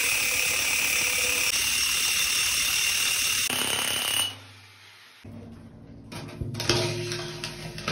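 Milwaukee rotary hammer drill with a core bit drilling through a concrete wall: a loud, steady run with a high whine that stops suddenly about four seconds in. A quieter, uneven scraping and knocking follows as a PVC pipe is fitted into the cored hole.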